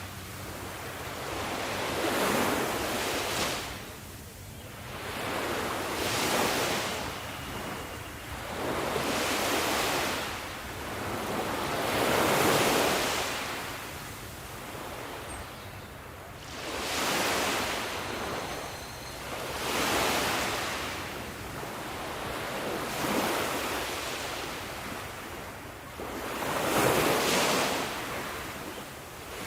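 Sea waves breaking on a shore, each swell of surf rising and washing back about every few seconds.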